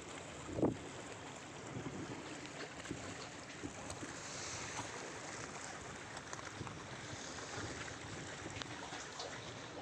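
Steady wash of sea waves with wind buffeting the microphone, and one short thump about half a second in.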